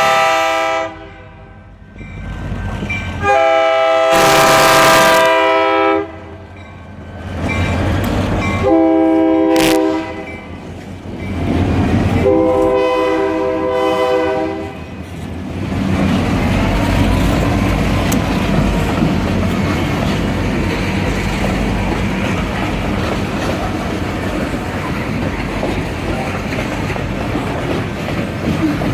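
Locomotive multi-chime air horn blowing the grade-crossing signal, long, long, short, long, with the first blast already sounding at the start. Then the train rolls past with steady wheel-on-rail noise.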